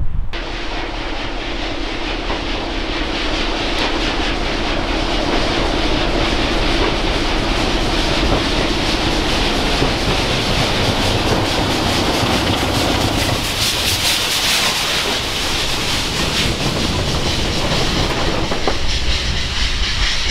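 A BR Class 33 diesel locomotive approaching with its Sulzer engine making a steady drone, which drops away about two-thirds of the way through as it passes beneath. The drone gives way to the rattle and clatter of the train's vehicles running over the rail joints.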